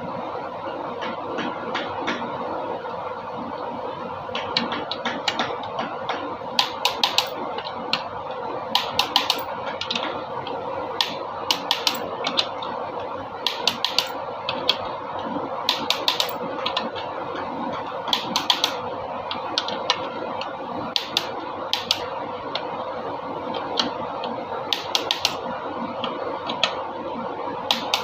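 Short runs of sharp metallic clicks every second or two, starting about four seconds in, over a steady hum: hand tools at work during an engine overhaul.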